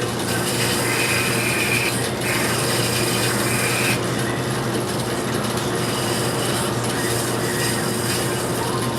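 Curtis 2H key duplicating machine running, its cutter rasping steadily through a key blank over a constant motor hum. From about one second to four seconds in the cutting turns brighter and higher, with a short break about two seconds in.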